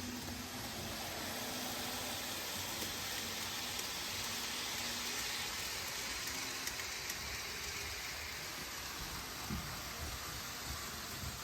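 N scale model train running along the track: a steady whirring hiss with a few light clicks from the wheels over the rail.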